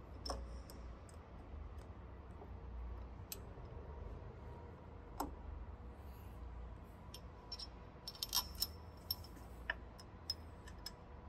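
Scattered small metallic clicks and clinks of bolts being fitted and hand-threaded through a pump's seal follower, with a quick run of clicks about eight seconds in, over a low steady hum.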